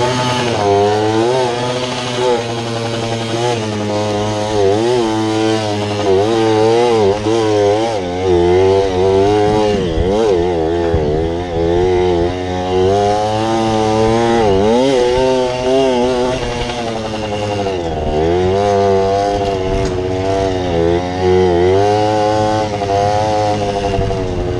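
Mini bike's small engine running under way, revving up and down every second or two as the throttle is opened and closed over rough ground.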